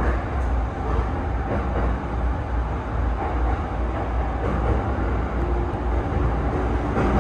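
E217-series electric train heard from inside the driver's cab, pulling away from an underground station into the tunnel: a steady low rumble of wheels and running gear under a haze of tunnel noise.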